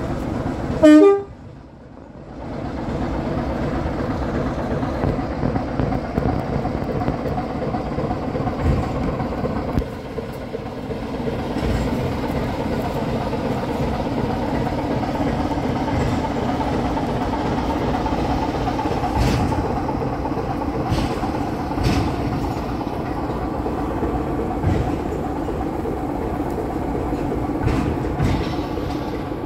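BR Class 24 diesel locomotive D5054 gives one short, loud horn toot about a second in, then its Sulzer six-cylinder diesel engine runs steadily as the locomotive moves slowly with a brake van. Sharp clanks of wheels over rail joints come several times in the second half.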